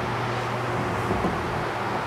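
Steady whoosh of electric fans blowing, with a low hum under it.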